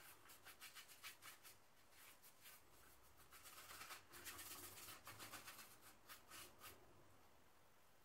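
Faint scratchy strokes of a paintbrush dragging black acrylic paint across a canvas board: a quick run of short strokes with a denser scrubbing stretch in the middle, stopping about seven seconds in.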